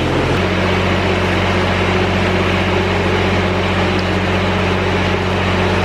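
Grasshopper 322D zero-turn mower's diesel engine running steadily just after a cold start, its pitch settling about half a second in.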